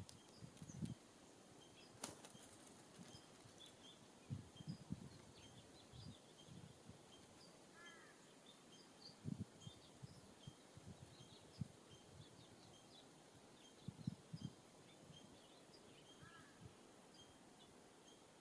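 Birds' wings fluttering at a backyard feeder: several soft, low flurries of wingbeats come and go, with one sharp click about two seconds in. Faint high bird chirps run throughout, with a short two-note call about eight seconds in and again near the end.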